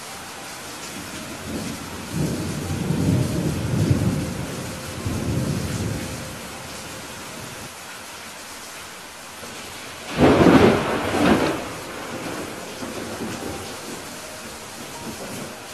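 Steady rain with thunder: a low rumble rolls from about two seconds in to about six, then a sharp, loud thunderclap breaks about ten seconds in and rolls on for a second or so before the rain alone continues.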